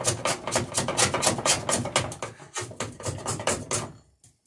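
Hand plane shaving the edge of a wooden dory plank in rapid, rhythmic strokes, several a second, trimming the plank's bevel; the strokes stop about four seconds in.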